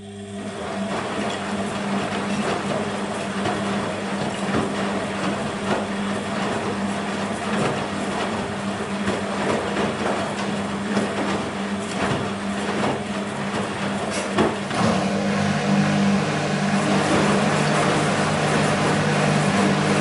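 Beko WMB 51441 front-loading washing machine starting up: the drum motor begins with a steady hum and the drum tumbles wet laundry, with water sloshing and irregular soft knocks. The sound gets a little louder about three-quarters of the way through.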